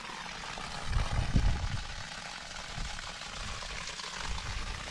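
Steady splash of water pouring from a black poly water line onto grass and dirt, pumped up by a newly installed submersible well pump. Wind buffets the microphone about a second in.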